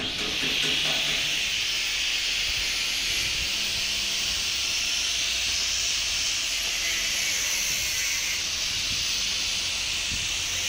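A steady, even hiss that begins abruptly.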